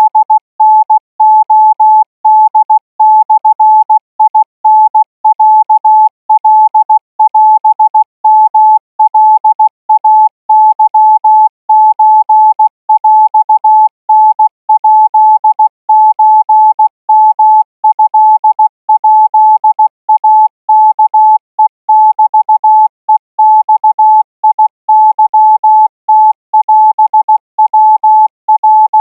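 Morse code practice tone at 20 words per minute: a single steady beep keyed on and off in short and long elements with brief gaps between characters, sending Thai Morse code for radio-operator training.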